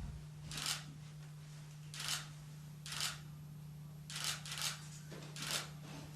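Hairdressing scissors cutting through locks of long hair: six short, crisp snips at an uneven pace, over a steady low electrical hum.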